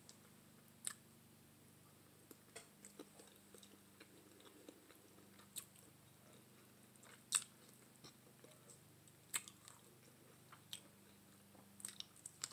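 Quiet, close-up mouth sounds of eating curry neck bones by hand: scattered wet clicks and smacks of lips and teeth working meat off the bone, about a dozen in all, the sharpest about seven seconds in. A faint steady low hum runs beneath.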